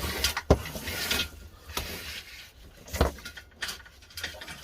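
Hands working on a plastic LED batten light fitting and its wiring: rustling and handling noise with two sharp clicks, one about half a second in and one about three seconds in.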